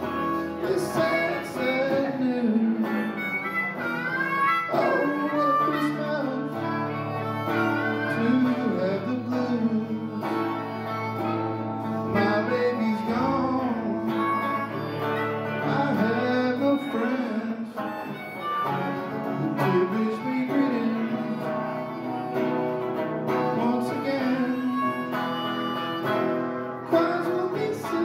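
Live blues-style music: an electric guitar strummed along with a harmonica played close to a microphone, and a man singing over them.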